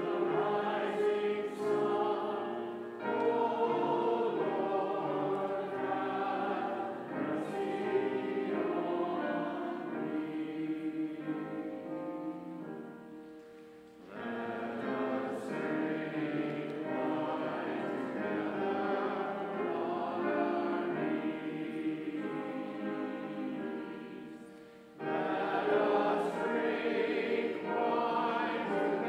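A choir singing in phrases, breaking off briefly about fourteen and twenty-five seconds in.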